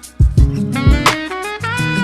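Background music: an upbeat jazzy tune with a steady beat and melodic horn-like lines, after a brief dropout at the start.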